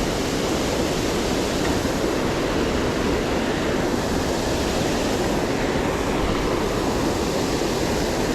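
Creek waterfall rushing steadily: water pouring into white water, an even, unbroken roar.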